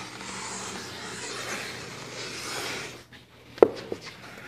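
Homemade notched FRP glue paddle scraping and spreading solvent-based adhesive across the back of a faux-wood wall plank. The scraping stops about three seconds in, followed by a sharp knock and a lighter one just after.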